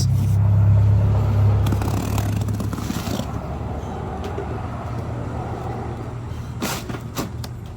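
Low, steady motor-vehicle engine drone, loudest in the first couple of seconds and then easing to a lower steady level, with a short knock near the end.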